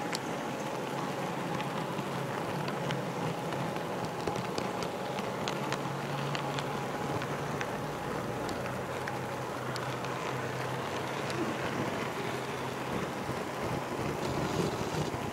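HO-scale model railroad car rolling along the track, a steady rumbling hiss with a low hum underneath and scattered small clicks as the wheels cross rail joints and turnouts.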